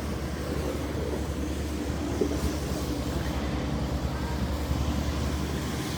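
Steady low rumble of city street noise with a faint hiss, picked up by a phone microphone outdoors in a snowstorm.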